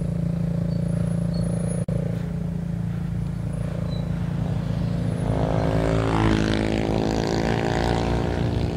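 Motorcycle engine running steadily at cruising speed, heard from the rider's camera. About halfway through, an oncoming vehicle passes, its engine and tyre noise swelling and then falling in pitch.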